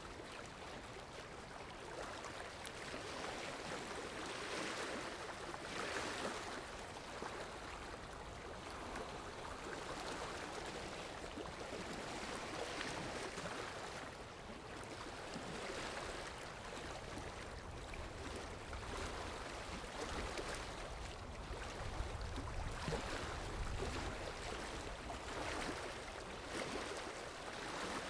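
Floodwater of a river in flash flood rushing and churning, a steady rush that swells and eases every few seconds. A low rumble joins about two-thirds of the way through.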